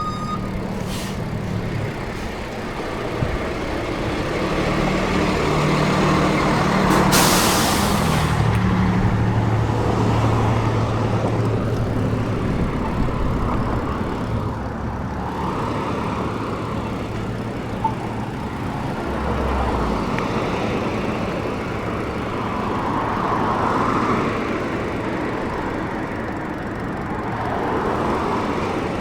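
Road traffic, with a large vehicle's engine running and a short loud hiss of air about seven seconds in.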